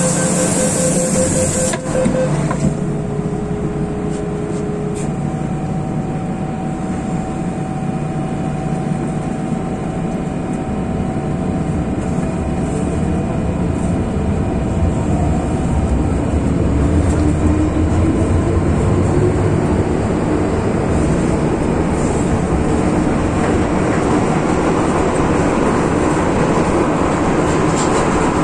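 MTR M-Train pulling away from the station and accelerating: a short run of beeps, likely the door-closing warning, in the first couple of seconds. Then the traction motors whine, rising in pitch (the car's known "ghost howl"), over the growing rumble of wheels on rail.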